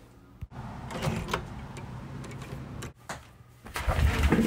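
Indistinct knocks and clatter over a noisy background, then heavy low thumps and a sharp hit near the end.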